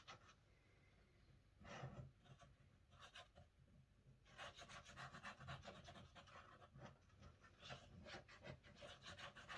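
Faint, quickly repeated scratchy rubbing on paper as glue is spread across a card, starting about two seconds in and running more steadily from about four seconds.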